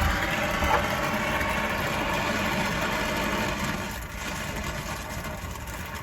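A motor running steadily with a hum, easing off slightly about four seconds in.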